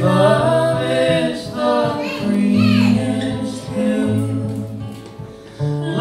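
A woman singing over strummed acoustic guitar in a live acoustic duet, with a brief lull near the end before the voices come back in.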